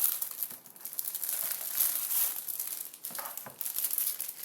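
Packaging crinkling and rustling as it is opened by hand, uneven and continuous, with a couple of light knocks near the end.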